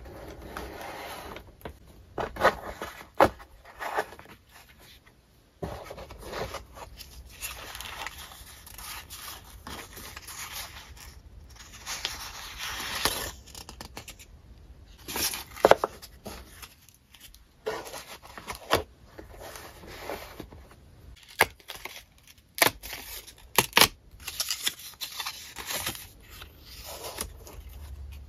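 Paper rustling and crinkling as memo-paper strips and sticker sheets are lifted from a plastic tray and handled, with many irregular sharp taps and crinkles.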